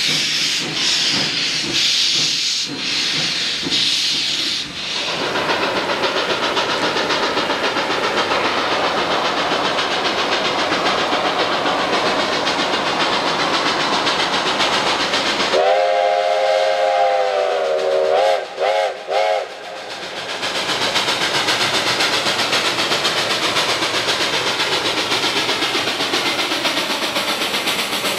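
Steam hissing from a standing narrow-gauge steam locomotive, then a K-28 2-8-2 steam locomotive running by with its exhaust working steadily. Past the middle it sounds its steam whistle: one long blast, then about three short toots.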